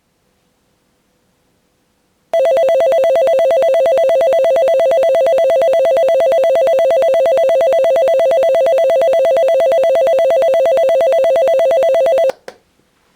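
JR East station-clock alarm clock sounding its alarm, an electronic imitation of a train station departure bell. It is a loud, rapid, continuous ringing that starts about two seconds in, runs for about ten seconds, and cuts off abruptly.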